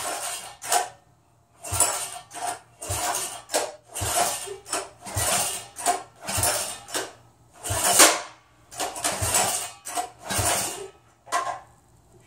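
Predator 212 Hemi engine being pull-started: about ten quick recoil-cord pulls in a row, each a whirring rattle as the engine turns over, and it never catches. The owner blames severe kickback on the cord on the ARC billet flywheel's timing, advanced to 32 degrees, which fires the engine before top dead center.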